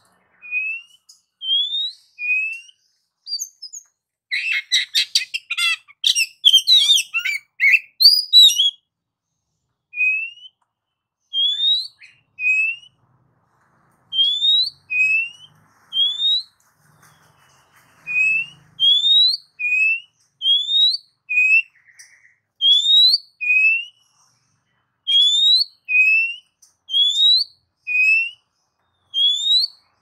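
Oriental magpie-robin singing: a run of short, rising whistled notes, often in pairs of a lower and a higher note. A burst of fast, varied warbling comes about four seconds in and lasts some four seconds.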